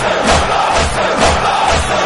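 Large crowd of mourners chanting in unison over a steady beat of about two thumps a second, the hand-on-chest beating of matam.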